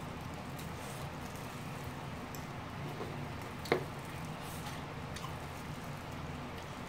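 Chewing a mouthful of tteokbokki close to the microphone: soft, wet mouth sounds over a steady low room hum, with one short sharp click a little past halfway.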